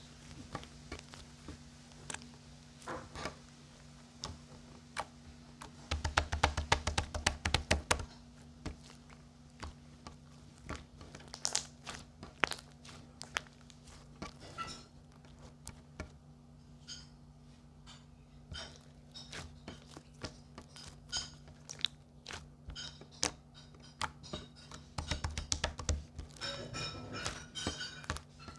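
Crunching and chewing: irregular clicks with bursts of rapid crunches about six seconds in and again near the end, over a steady low hum.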